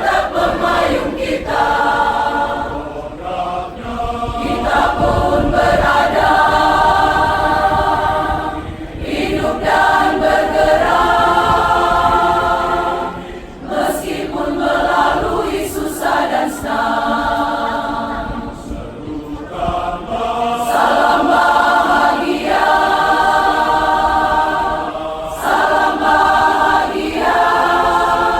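Church choir singing a choral arrangement in held multi-part chords, phrases of a few seconds with short breaths between them.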